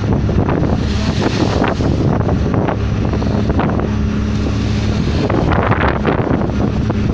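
Water rushing and splashing along a moving boat's hull, under heavy wind buffeting the microphone, with the steady low hum of the boat's engine running underneath.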